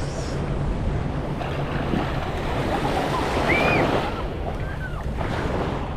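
Small surf waves washing in on the shore, with wind buffeting the microphone.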